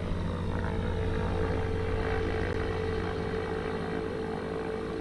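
Light propeller airplane's engine and propeller running steadily as it flies low, a constant drone with a steady hum.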